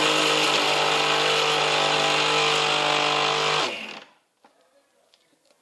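Electric mixer-grinder running at full speed, grinding roasted dry fruits into a fine powder: a steady motor hum with a hiss. It is switched off a little under four seconds in and winds down briefly.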